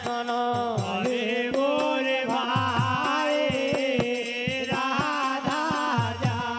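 Folk bhajan music: voices carrying a long, bending melodic line over a steady beat, with wooden kartal clappers jingling in time.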